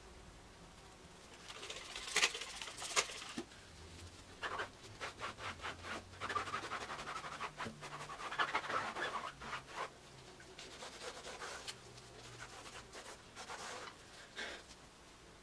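Microfibre cloth rubbing over an alloy wheel and tyre in irregular scrubbing strokes, with two sharp clicks about a second apart near the start and a run of quick short strokes in the middle.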